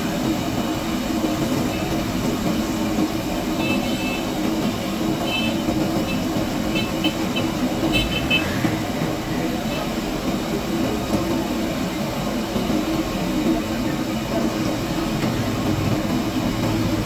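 Samosas deep-frying in a large wok of hot oil: a steady sizzle with a low rumble underneath.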